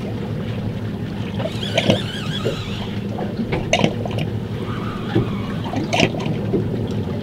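Steady low hum of the fishing boat with water slapping against the hull, broken by a few short sharp knocks and a high wavering chirp about two seconds in.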